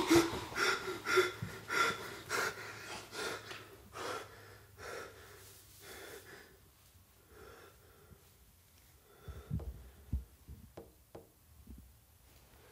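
A man's rapid, heavy gasping breaths, about two a second, fading away over the first six seconds. A few soft low thumps follow about nine to ten seconds in.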